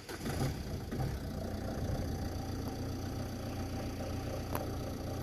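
An engine idling steadily, starting suddenly with a faint click near the end.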